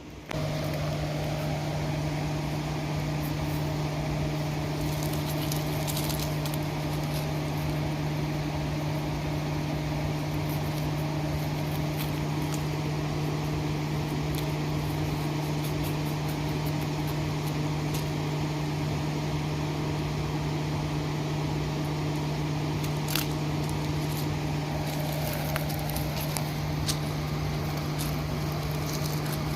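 A steady, low mechanical hum that cuts in suddenly at the start and holds one pitch throughout, with scattered faint clicks over it.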